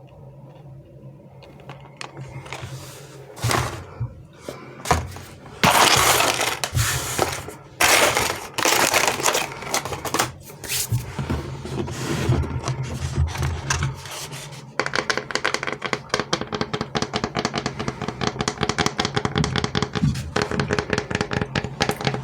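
Sweet and chocolate wrappers crinkling and rustling as candies are unwrapped, with sharp clicks of pieces being handled. About two-thirds of the way in, a fast, even tapping takes over.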